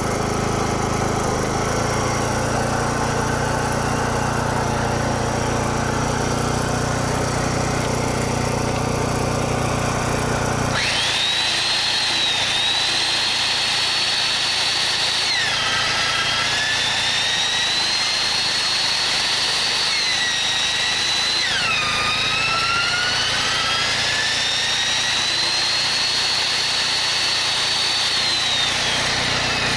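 A small engine runs steadily, then about eleven seconds in it gives way to the high-pitched whine of an electric power-tool motor. The whine dips sharply in pitch three times, as if pressed under load, recovering each time, and falls away near the end.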